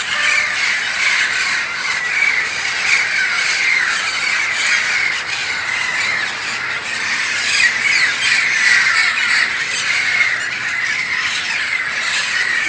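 Parakeets squawking and chattering non-stop, many calls overlapping at once.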